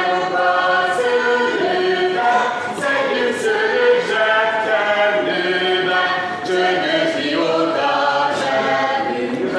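A group of voices singing a song together without instruments, in long held notes that move from note to note.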